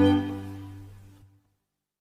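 Background string music: a held chord fading out over about a second, then silence.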